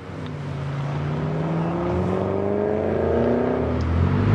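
Car engine accelerating, fading in and growing louder, its pitch rising steadily.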